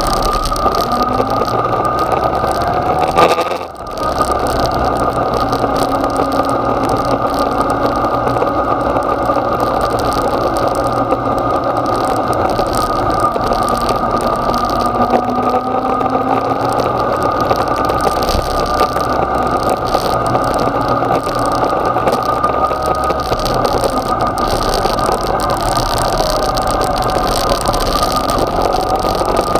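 Yamaha XJ6 motorcycle's 600 cc inline-four engine running steadily at low road speed, heard from a camera mounted on the bike, mixed with wind and road noise. A sharp loud knock about three seconds in is followed by a brief dip in the sound.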